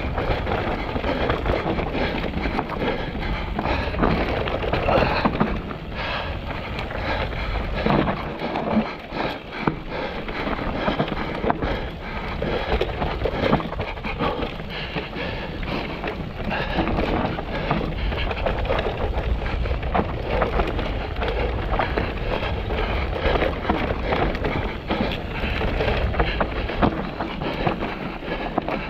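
Mountain bike riding down a steep, rough, rocky trail: a constant clatter of tyres and bike knocking over rock, with steady wind noise on the microphone.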